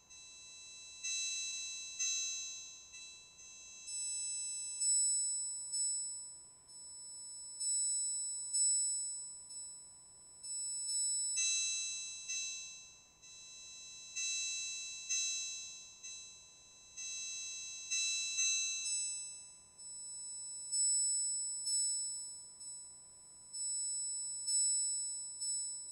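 Electronic synthesizer music: high, bell-like notes struck every second or two, each dying away quickly, over a faint steady tone.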